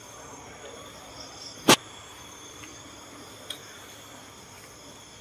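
Steady chorus of night insects, crickets among them, with one sharp, loud knock about a second and a half in and a fainter click a couple of seconds later.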